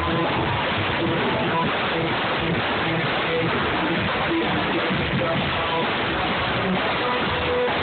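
Live rock band playing loud in a small club, with guitar and drums, the sound filling the room without a break.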